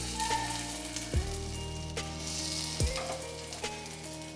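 Pieces of sabudana (sago) and potato mixture sizzling steadily in hot oil in a shallow pan as they are set in to fry, with a few light clicks. Low background music plays underneath.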